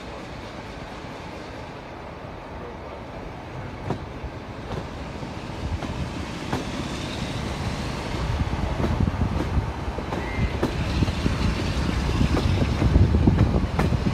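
Moving diesel-hauled passenger train heard from an open coach window: the wheels rumble on the track with a few sharp clicks, and wind buffets the microphone. The noise grows steadily louder as the train gathers speed.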